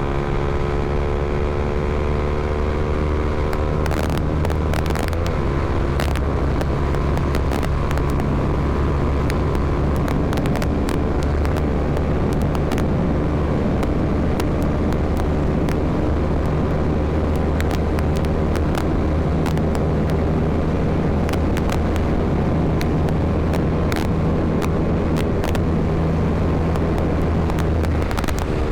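Honda CBR300R's single-cylinder engine running under way, its pitch shifting with changing revs in the first few seconds and again near the end, steady in between. Many short sharp clicks sound over the engine throughout.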